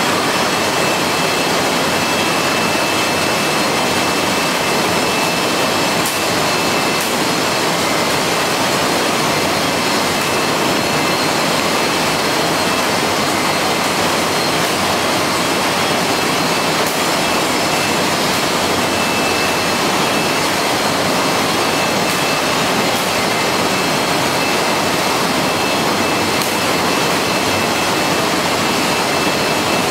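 Steady, even machinery noise of a running poultry processing line, with a faint high steady whine and a few light ticks.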